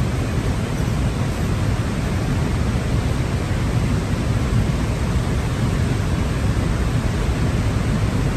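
Steady rushing noise of wind on the microphone, heaviest in the low end, with no distinct tone or knock standing out.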